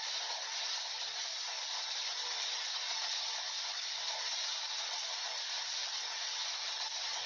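A steady, even hiss with no music or beat to be heard.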